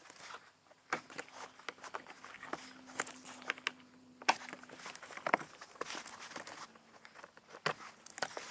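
Irregular sharp clicks and rustling of gloved hands working a self-adjusting wire stripper on thin CAN wires, stripping their insulation. A faint steady hum sits underneath for most of it.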